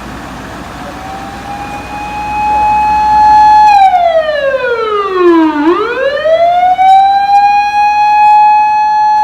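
Fire engine siren: a wail that winds up over about two seconds and holds a high steady note. About three and a half seconds in it slides down to a low note, then winds back up and holds high again.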